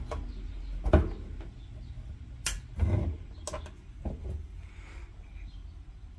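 A few separate clicks and knocks from hands handling a small metal-cased EG4 LiFePower4 communication hub and its network-style cables: one knock about a second in, a sharp click near the middle, then a cluster of smaller knocks.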